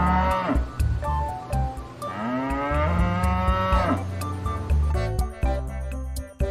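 Cow mooing: one moo trails off just after the start, then a long moo begins about two seconds in, lasting about two seconds and rising in pitch at its start. Background music with a steady beat plays underneath.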